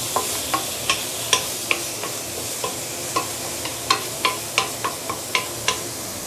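Chicken feet, mushrooms and spices sautéing in oil in a stainless steel wok, with a steady sizzle. A wooden spatula stirs them, its strokes knocking and scraping against the wok two or three times a second.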